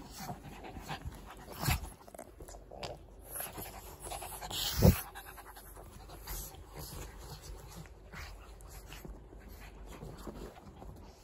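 Small dogs, a Shih Tzu and a pug, panting while they rough-play on a bed. Fur and bedding rustle right against the microphone, with a sharp knock at about two seconds and a louder one about five seconds in.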